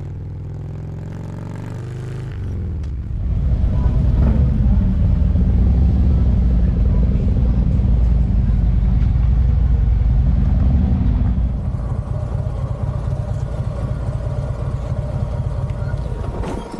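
Harley-Davidson motorcycle engine running on the road. It grows much louder about three seconds in and eases a little after about twelve seconds.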